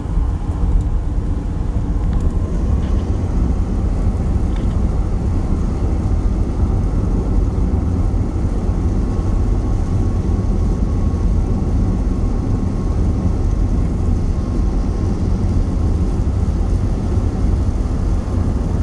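Steady in-cabin road and wind noise of a car cruising at about 60 mph on a wet highway, a deep even rumble with no change in speed.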